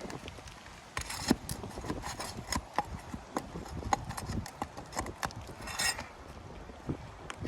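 Old roofing nails being worked loose and pulled from under asphalt shingles: irregular light knocks and clicks of a tool on nails and shingles, with a short scrape near the end.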